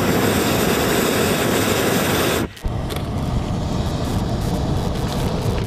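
Hot-air balloon propane burners firing: a loud steady roar that starts abruptly and cuts off about two and a half seconds in, followed by a quieter steady rushing noise.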